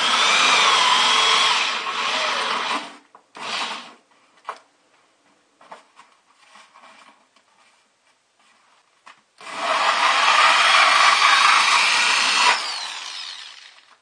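Hole saw on a corded drill cutting through a plastic bucket and its foam liner: two runs of about three seconds each, with a short burst just after the first and light knocks and handling in between. The second run stops near the end and the drill spins down.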